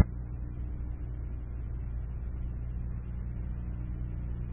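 A sharp click, then a steady low hum with a faint hiss that does not change.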